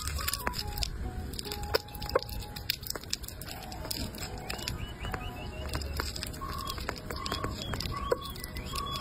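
Sugar glider chewing a large grub: a steady run of small wet crunches and clicks, with a few sharper cracks. Soft background music of short repeated notes plays underneath.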